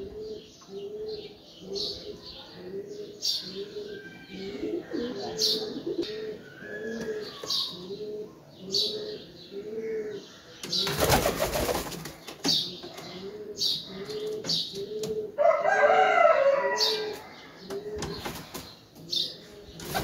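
Domestic pigeon cooing over and over, a low coo repeating a little more than once a second. Just past halfway comes a loud flurry of flapping wings, and another right at the end as a pigeon takes off.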